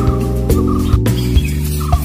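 Background music with sustained chords over a steady beat.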